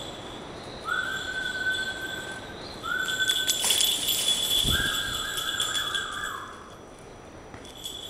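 Three steady whistled notes, the middle one short and the last the longest, over a thin high ringing tone that comes and goes. A brief rustling burst comes about halfway, followed by a dull thump.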